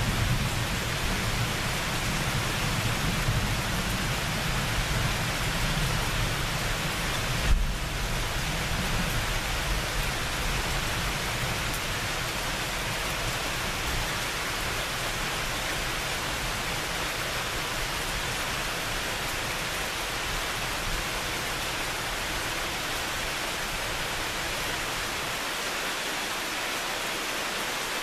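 Steady rain falling, with the low rumble of thunder dying away over the first several seconds. A single short thump comes about a quarter of the way in.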